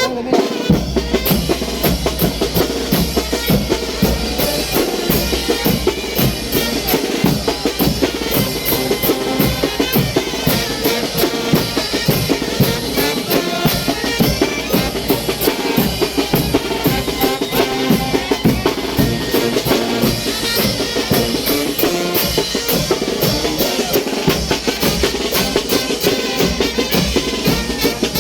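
Mexican banda de viento (wind band) playing chinelo brinco dance music, driven by a steady, fast drum and cymbal beat.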